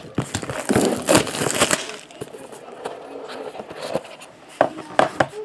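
Hands handling cardboard trading-card boxes and shrink-wrap on a table: rustling and scraping, loudest about a second in, then two sharp knocks near the end.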